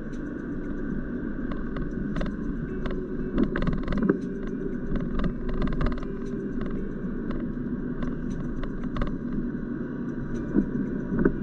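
Car driving on a wet road, heard from inside the cabin: a steady low rumble of road and engine noise with scattered small clicks and knocks.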